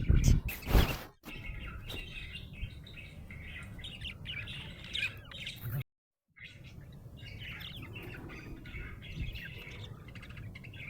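Budgerigar chirping and warbling in quick, busy runs of short high notes. A loud low rumble fills the first second, and the sound drops out completely for half a second midway.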